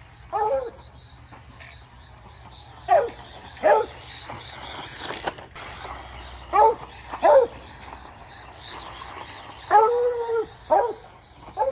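Dog barking, about eight short barks, mostly in pairs with a few seconds between them; one bark near the end is longer and drawn out.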